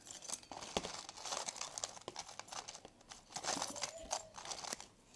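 Crinkling and rustling of a plastic bag being handled, with many small sharp clicks, as a piece of jewellery is taken out of its packaging.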